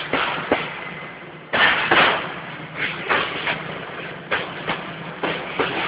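Freight train of container wagons pulling out slowly, with irregular knocks from the rolling wagons over a steady rushing noise and a low hum.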